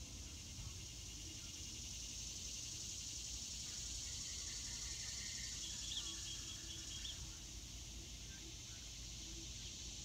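Steady high-pitched chorus of insects from the woods, with a few short bird chirps around the middle.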